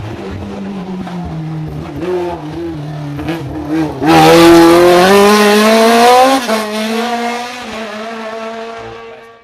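Sports prototype race car engine, its note dipping and rising as the car slows into a hairpin. It gets suddenly loud about four seconds in as the car passes close, and the pitch climbs steeply as it accelerates away. The pitch drops at a gear change about six and a half seconds in, and the sound fades as the car pulls away up the hill.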